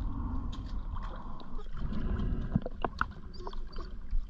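Water sloshing and splashing close to the camera, with scattered small clicks and knocks.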